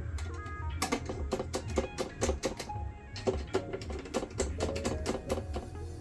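Background music with a steady beat, a bass line and short melodic notes.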